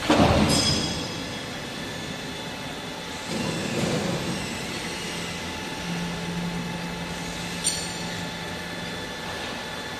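Factory machinery noise, a steady mechanical din with a loud surge at the start and another about three seconds in. A low steady hum runs from about six seconds, and a single sharp click comes near eight seconds.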